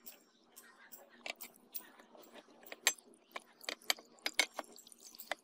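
Irregular light clicks and taps from a rusty steel meat cleaver and a steel pouring can being handled over a clay bowl. The loudest come about three and four seconds in.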